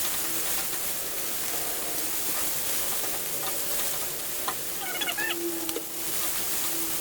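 Food sizzling steadily in hot oil in a pan, with a few short clicks and scrapes of a utensil about five seconds in.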